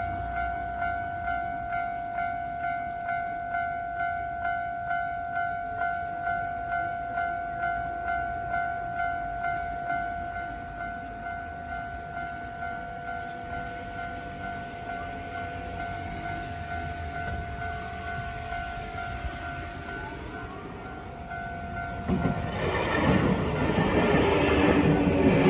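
Japanese railway level-crossing warning bell ringing in steady, even pulses, about three strikes every two seconds. It stops about 22 seconds in, and a louder, rougher noise takes over near the end.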